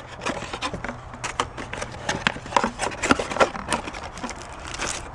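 Cardboard packaging handled by hand: a card insert lifted and flexed and items pulled from the box compartment, giving irregular clicks, scrapes and light rustling.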